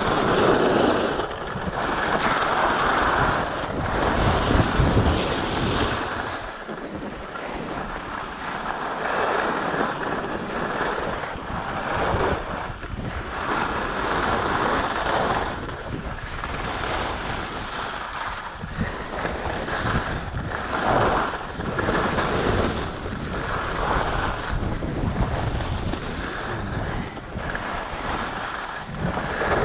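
Wind rushing over a chest-mounted action camera's microphone while skiing fast, mixed with the hiss and scrape of skis on groomed snow. The rush swells and eases every few seconds with the turns.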